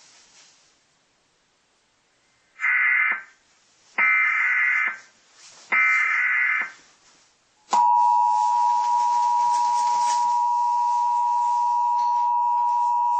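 Emergency Alert System broadcast tones: three bursts of SAME header data, a harsh warbling screech of about a second each, then about eight seconds in the steady EAS two-tone attention signal begins and holds.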